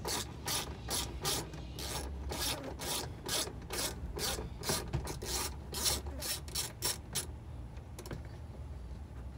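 Hand ratchet with a 7mm socket clicking in quick back-and-forth strokes, about three a second, as a 7mm bolt is backed out of the door panel by the armrest. The clicking stops about seven seconds in.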